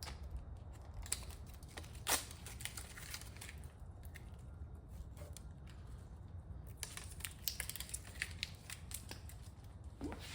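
Handling sounds from small plastic parts and peeled adhesive backing: scattered clicks, ticks and crinkles, with a sharp click about two seconds in and a busier run of ticks later. A steady low rumble runs underneath.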